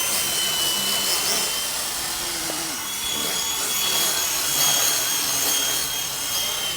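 WLtoys V912 RC helicopter in flight, its small electric motors and rotors giving a steady high whine over a rushing hiss. The pitch sags a little, then steps back up about three seconds in.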